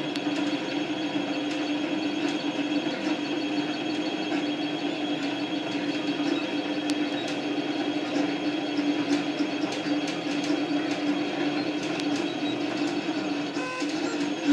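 Leapfrog Creatr desktop 3D printer running as it prints honeycomb infill in PLA: its stepper motors hum steadily, with scattered faint ticks.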